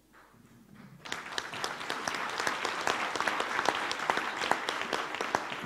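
Audience applauding. It starts about a second in, goes on as a steady patter of many hands clapping, and begins to fade near the end.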